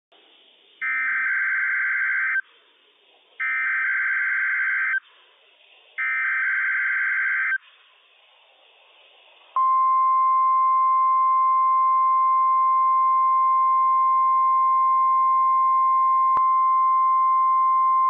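NOAA Weather Radio alert signal sent as a test: three short bursts of SAME digital header data, each about a second and a half, then the steady 1050 Hz warning alarm tone, which starts about halfway through and holds for over eight seconds.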